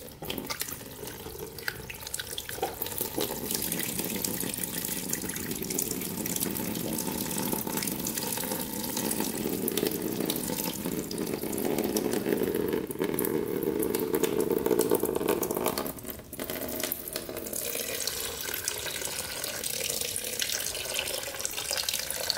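Green coolant pouring in a thin stream from the engine's coolant drain screw into a drain pan: a steady splashing trickle that falters briefly about sixteen seconds in.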